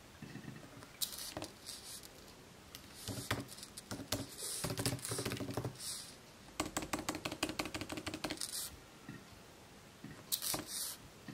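Typing on a laptop keyboard: bursts of quick key clicks with short pauses between them, the longest and fastest run about two thirds of the way through.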